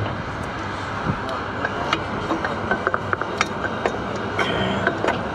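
Scattered light clicks and clinks from metal tools and parts being handled, over a steady background hiss.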